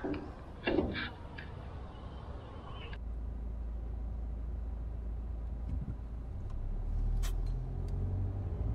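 Steady low road and engine rumble inside a car's cabin at about 90 km/h. It sets in abruptly about three seconds in, after a brief voice and faint outdoor background.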